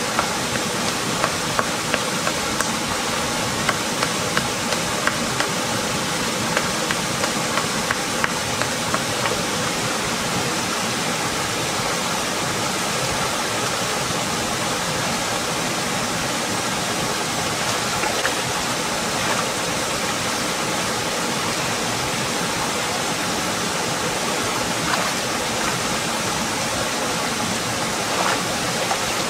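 Small waterfall pouring into a rocky stream pool, a steady rush of water, with frequent short splashing ticks through about the first nine seconds and a few more later on.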